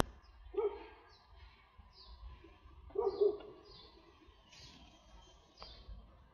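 Wild birds singing: a run of short, high, falling chirps repeating every half second or so, with a louder, lower call about half a second in and again around three seconds in.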